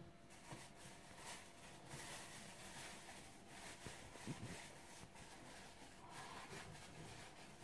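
Faint, uneven crunching and scraping of a small metal hand mill being turned by hand, grinding spice.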